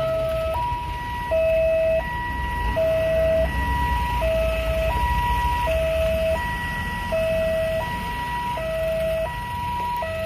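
Railway level-crossing warning alarm sounding a steady two-tone hi-lo signal, switching between a higher and a lower tone about every three-quarters of a second. It keeps sounding after the train has already passed, the alarm being controlled from the station.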